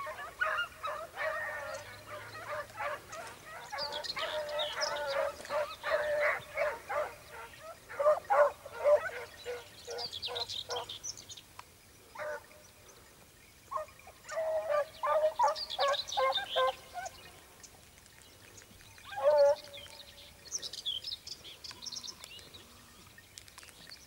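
Beagle baying in bouts of rapid, pitched yelps with short pauses between, the hound giving tongue as it runs a hare's scent trail through the scrub.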